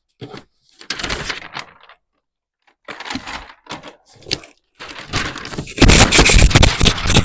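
Hands rummaging through a mystery box: scattered rustles and knocks, then a loud, dense stretch of rustling and clattering in the last second or so as the box turns out to be empty.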